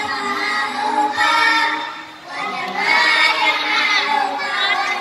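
A group of young children singing together in unison over a backing music track, with a short break in the singing about two seconds in.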